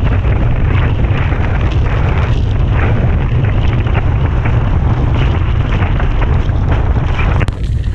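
Strong wind buffeting the microphone in a deep, steady rumble, mixed with the rush and slap of choppy water under a windsurf board sailing at speed. The noise dips briefly just before the end.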